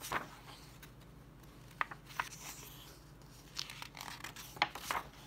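Pages of a paperback picture book being turned and smoothed flat by hand: a handful of short paper rustles and swishes.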